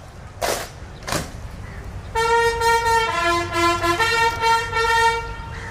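Two sharp knocks, then a bugle sounding a salute call from about two seconds in: a string of held notes stepping between pitches, answering the parade command to offer the salute.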